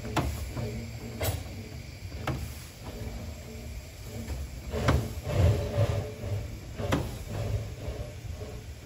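Fowler narrow-gauge steam locomotive moving off slowly: a low rumble broken by irregular sharp clanks and knocks, the loudest about five seconds in.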